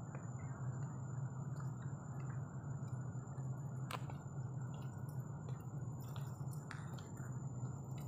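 Faint scattered clicks and scuffs of footsteps going down stone steps, over a steady low hum and hiss with a thin high steady tone; the sharpest click comes about four seconds in.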